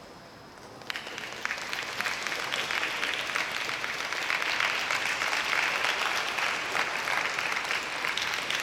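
Audience applauding, with many hands clapping. It begins about a second in and swells, then holds steady.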